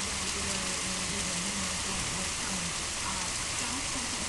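Heavy rain pouring down, a steady dense hiss of drops on surfaces.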